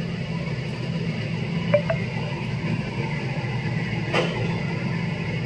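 Steady low machine hum, with one faint click about four seconds in.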